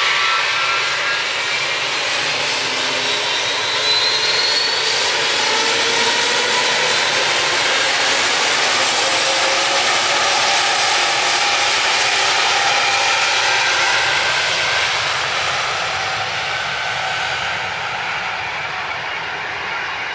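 Lufthansa Airbus A320neo's Pratt & Whitney PW1100G geared turbofans at takeoff thrust as the jet starts its takeoff roll. A thin whining fan tone rises in pitch a few seconds in over the steady jet roar. The roar fades over the last few seconds as the aircraft rolls away down the runway.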